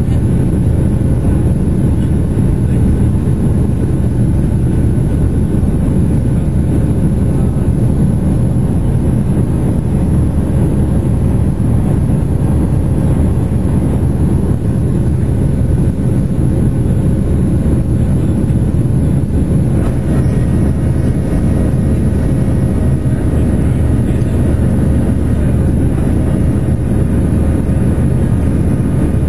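Boeing 737-700 cabin noise during the climb after takeoff: the steady low roar of the engines and the airflow, heard from a window seat, with a faint steady hum above it.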